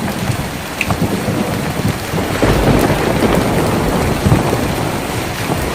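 Heavy rain drumming steadily on a tin roof, heard from inside, with a low rumble swelling about halfway through.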